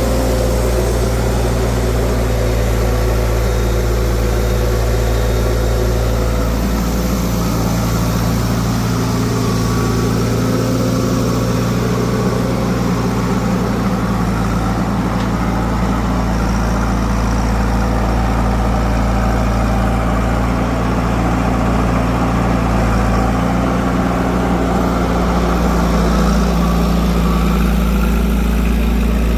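Heavy diesel engines of a backhoe loader and tractors running steadily at low speed, with a constant deep engine note.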